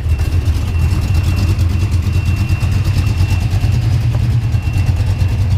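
Fox-body Ford Mustang's stroker small-block V8 idling steadily with a loud, uneven lump from its aggressive cam.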